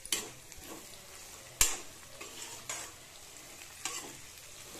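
Sliced onions and green capsicum sizzling in hot oil in a metal kadai while a slotted metal spoon stirs them, scraping and knocking against the pan a few times. The sharpest knock comes about a third of the way in.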